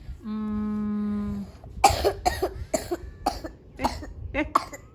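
A child's coughing fit: a quick run of about nine short, harsh coughs in close succession, a cough that set in after swimming. Before it, a steady one-pitch hum lasts about a second.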